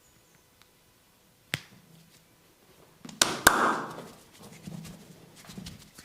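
Sharp strikes and cracks of a hands-on body massage: a single click about a second and a half in, then two sharp cracks close together about three seconds in, each with a brief rustling burst after, and soft rubbing after that.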